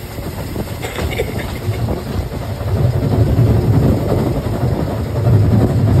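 Narrow-gauge steam-hauled train heard from inside a coach while it is moving: a steady low rumble of the coaches running along the track, getting louder partway through.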